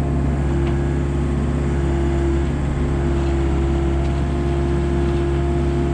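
Komatsu excavator's diesel engine running steadily with a constant droning hum and a steady higher tone over it, as the bucket is worked.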